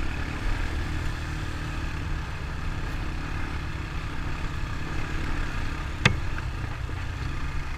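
Honda ATV engine running as the quad rides along a desert trail, a steady low drone, with a single sharp knock about six seconds in.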